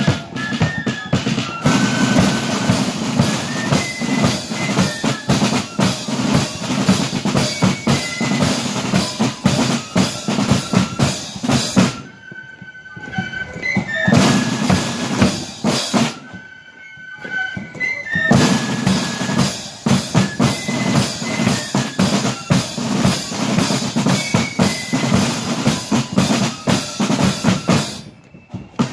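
Marching flute band playing: fast snare and bass drum beats under a high flute melody. The drums drop out briefly twice in the middle, leaving the flutes, and stop near the end.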